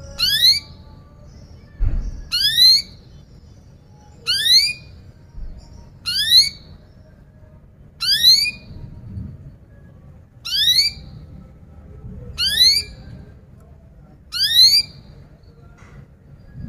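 Domestic canary repeating a sharp rising "cuit" call, eight times about two seconds apart, each call a quick upward whistle. A faint low hum lies under it, and a single dull thump comes just before the second call.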